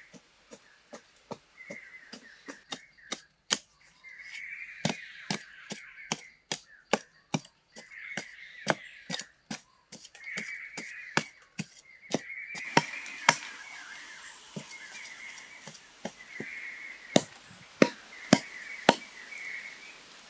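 Machete blade chopping into packed soil, a quick run of repeated strikes about two to three a second, with four harder blows near the end.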